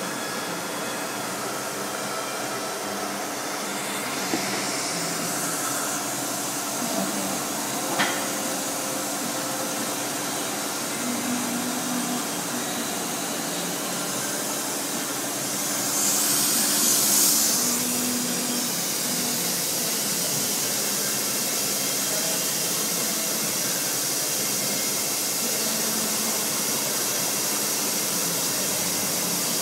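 Steady machine hum and hiss, with two swells of hissing about 4 and 16 seconds in and a sharp click near 8 seconds.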